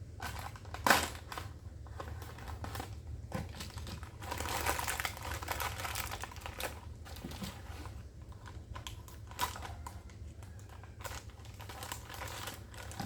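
Irregular clicks, knocks and crinkling rustles as parts and packaging are handled, with a sharp click about a second in, over a low steady hum.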